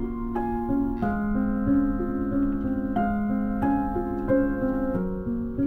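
Gentle background score: a slow, soft keyboard melody of sustained notes that change every half second or so.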